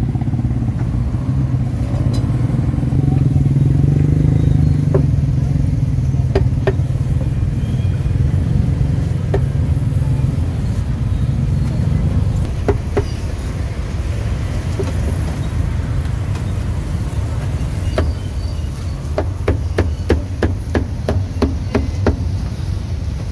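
Street traffic: a motorcycle-like engine rumble that is strongest in the first half, then eases to a steady background hum. Scattered sharp knocks come throughout, and a quick run of them, several a second, comes near the end.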